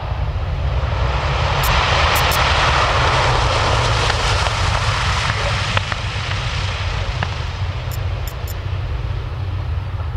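Douglas DC-6 airliner landing and rolling out, its four radial piston engines and propellers running with a steady low rumble. The sound swells a couple of seconds in as the aircraft passes, then slowly eases as it rolls away down the runway.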